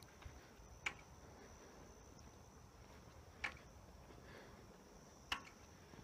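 Near silence broken by three faint, short knocks at uneven intervals: about a second in, in the middle and near the end. They come from a flagpole banging in the wind. A faint, steady, high-pitched tone runs underneath.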